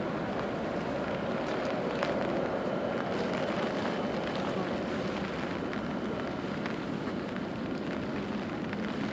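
Rainy city street: a steady wash of rain and traffic on wet roads, swelling slightly a couple of seconds in, with scattered light ticks of drips or footsteps.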